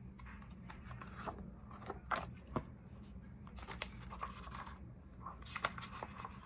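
Hardcover picture book being opened and its pages turned by hand: scattered light paper rustles and small clicks of the cover and pages.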